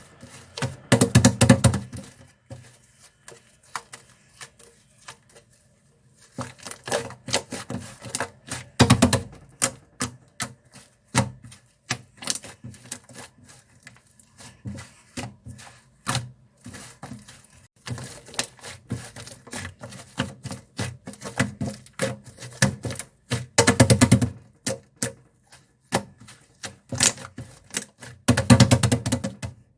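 Toffee slime being squeezed and pressed by hand, giving rapid clicking and popping of trapped air. It comes in bursts, loudest about a second in, around nine seconds in and near the end, with lighter crackling between.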